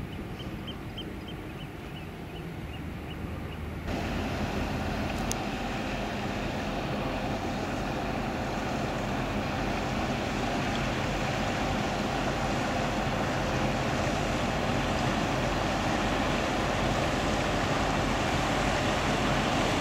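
Car ferry under way: steady engine noise mixed with rushing water, growing steadily louder as the ship approaches. About four seconds in the sound changes abruptly to a louder, fuller noise; before that it is quieter, with a quick run of about a dozen short high pips.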